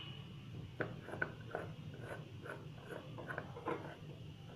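Plastic screw lid being twisted shut on a jar, the threads giving a run of short, faint rasping scrapes, about two or three a second.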